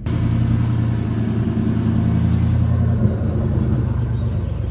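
Pickup truck engine idling steadily, with a single knock about three seconds in.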